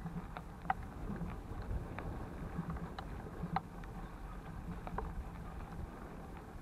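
Bicycles rolling over a dirt and grass path, a steady low rumble through a bike-mounted camera with scattered small clicks and rattles.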